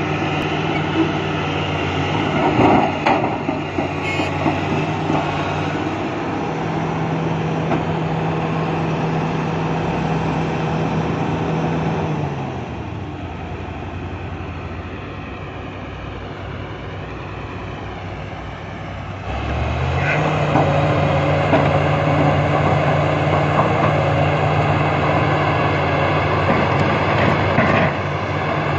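XCMG XE370CA crawler excavator's diesel engine running steadily under working load. About twelve seconds in it drops to a lower, quieter note and returns to working speed about seven seconds later. A few knocks near the start come as the bucket dumps into the dump truck's bed.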